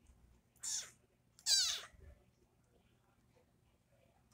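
Kitten mewing twice, short high-pitched calls about a second apart, the second longer and falling in pitch.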